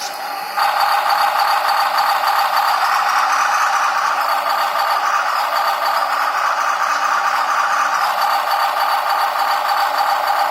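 RC car engine sound module playing a simulated engine sound through its small speaker. It comes on suddenly, gets louder about half a second in, then runs steadily.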